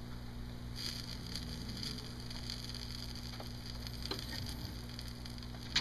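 Faint sizzling and light crackling of a grilled cheese sandwich frying in bacon grease in a pan on a portable stove, over a steady low hum.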